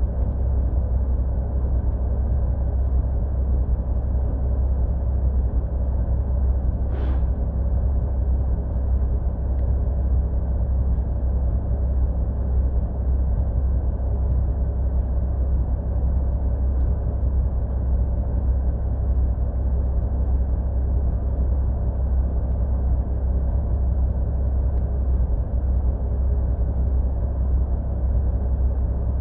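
Heavy dump truck's diesel engine idling steadily, a low rumble. A brief hiss about seven seconds in.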